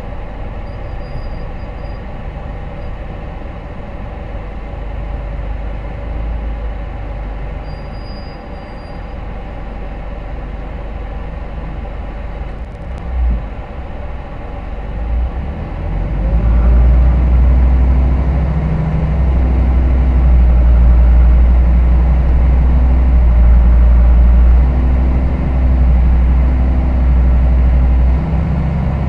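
Hino Rainbow HR city bus heard from inside the cabin while running, with a steady hum of engine and road. About halfway through, a short knock is heard, then the diesel engine's low rumble grows much louder and stays strong as the bus picks up speed.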